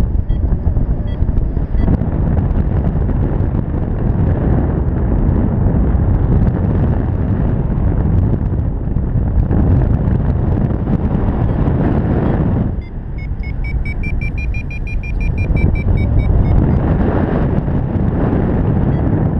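Wind buffeting the camera's microphone in flight, loud and steady. About two-thirds of the way in, a paragliding variometer beeps rapidly for a few seconds, rising slightly in pitch, the signal that the glider is climbing in lift; a few more beeps sound near the end.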